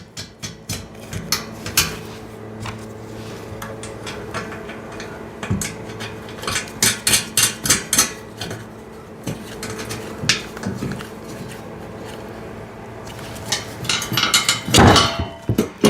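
Metal clinking, tapping and knocking as nuts are fitted onto the bolts holding a bottle jack in a steel car ramp, with a run of quick clicks in the middle and a louder clatter near the end.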